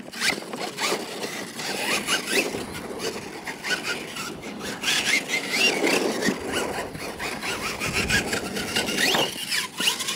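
Radio-controlled monster truck's motor and drivetrain whining, the pitch rising and falling with the throttle, over a rough scrabbling of its tyres on the dirt.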